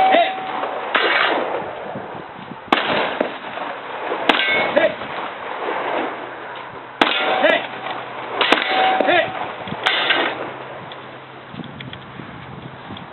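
Glock pistol fired in a slow string of single shots one to three seconds apart, each followed by the ring of a struck steel target.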